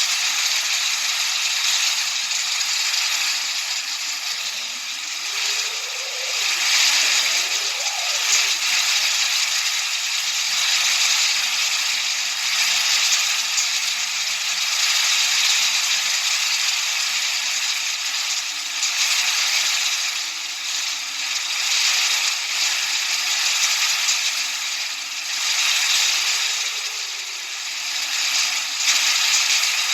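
Synthetic white noise: a steady hiss with no deep bass, swelling and dipping gently every few seconds, over a faint, slowly sweeping undertone.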